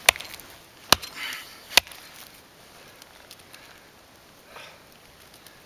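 Small Bahco axe chopping into a resin-soaked fatwood stump: three sharp strikes a little under a second apart, chipping pieces off the wood.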